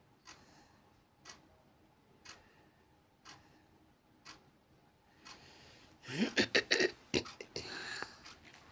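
A clock ticking faintly, once a second. About six seconds in comes a louder short burst of clicks with a brief rising voice-like sound, then a soft rustle of hands mixing dal paste in a steel bowl.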